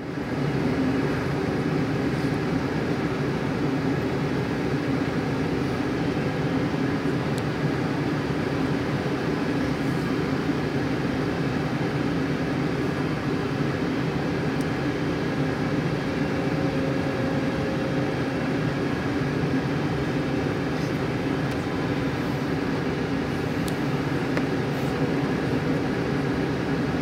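Steady cabin noise inside a Boeing 747-8 airliner on approach: the drone of its engines and the rush of air past the fuselage, with a few steady hum tones over the noise. It fades in at the start and then holds even.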